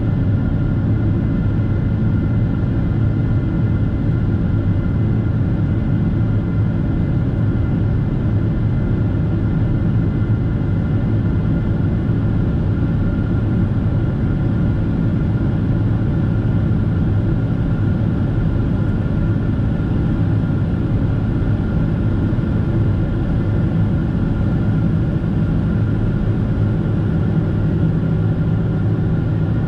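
Cabin noise of a Boeing 767-400ER in its climb after takeoff, heard beside the wing: the GE CF6-80C2 turbofan engines and airflow make a steady deep rumble with a couple of constant whining tones.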